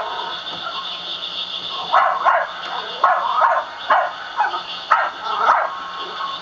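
A dachshund barking repeatedly, short sharp barks about two a second, starting about two seconds in and stopping shortly before the end.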